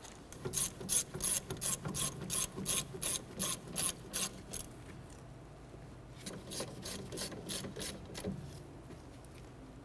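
Hand ratchet clicking in two runs of quick back-and-forth strokes, about three clicks a second, with a pause of about two seconds between them, as the brake caliper's slide pin bolts are snugged down.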